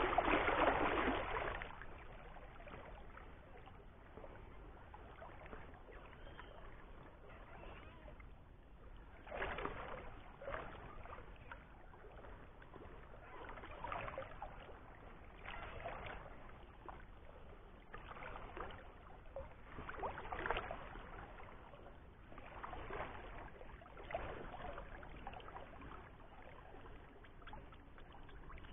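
Water sloshing and lapping around a small boat, louder in the first second or so. From about nine seconds in, soft swishing swells come every one to two seconds.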